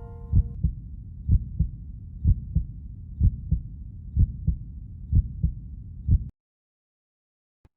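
Heartbeat sound effect: low double thumps, a pair about once a second, that cut off abruptly about six seconds in. A single faint click follows near the end.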